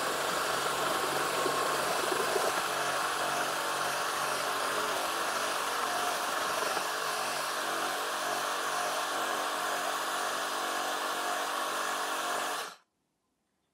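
Reciprocating saw driving a pruning-saw blade through a green limb, sped up fourfold, so the motor comes through as a steady pitched drone over rasping cutting noise. It cuts off suddenly near the end.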